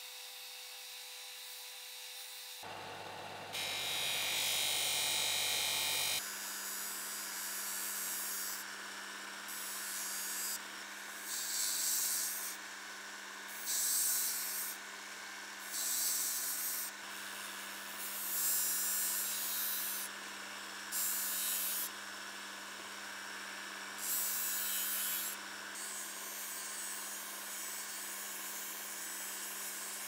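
Axminster disc sander running with a steady motor hum while a rusty steel knife blade is pressed to the abrasive disc in about eight short grinding passes, each a hiss lasting a second or two.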